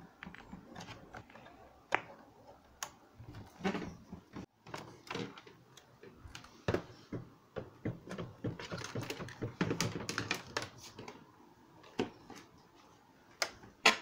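Irregular clicks and knocks of plastic portable radio cases being handled and shifted on a wooden table, with a sharp click near the end.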